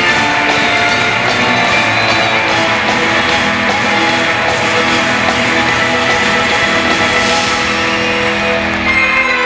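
Loud rock-style show music with guitar and a steady beat, changing to a new section about nine seconds in.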